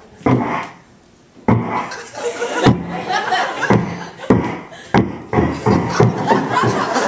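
A man making sound effects with his voice into a microphone: a string of sharp, irregular mouth noises and vocalised effects after a short lull about a second in.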